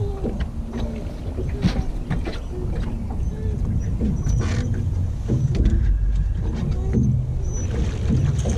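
Steady low rumble of wind and water around a small aluminum fishing boat, with scattered light knocks and clicks from the angler handling rods and gear on the deck.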